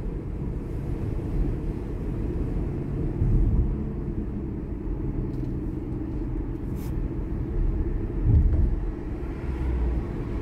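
Steady low rumble of road and tyre noise heard from inside a moving car's cabin, swelling briefly about three seconds in and again near eight seconds.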